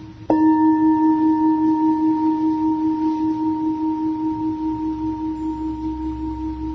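Tibetan bell struck once, about a third of a second in, ringing on in a low and a higher tone that pulse slowly as they fade, over the fading ring of an earlier strike. It is a meditation stage-change signal.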